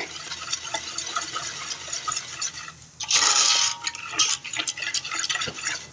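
Wire whisk stirring caramel sauce in a copper saucepan, its wires ticking and scraping against the metal, with a louder hissing swish lasting under a second about three seconds in.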